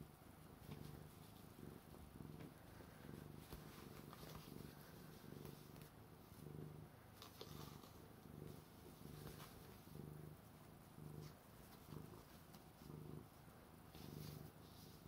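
A plump domestic cat purring faintly while its belly is rubbed. The low purr swells and fades in a steady rhythm about once a second, in time with its breathing.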